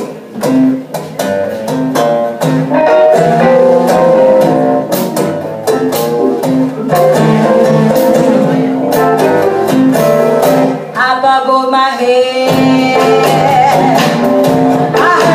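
Live band playing an up-tempo song: acoustic guitar strummed in a steady rhythm, with women's voices singing, most clearly about eleven seconds in and again near the end.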